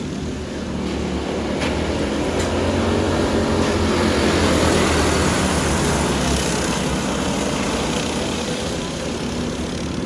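Several racing go-karts' small engines running hard on a dirt oval. The sound swells as the pack passes close, loudest about halfway through, then eases off as they move away.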